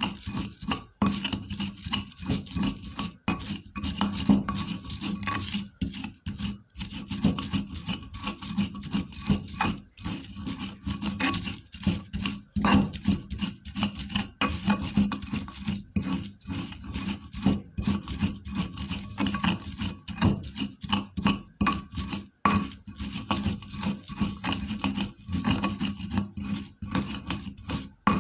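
Stone pestle (ulekan) grinding wet spice paste of shallots, garlic, chili and turmeric against a stone mortar (cobek): a steady run of short rasping scrapes, broken by brief gaps.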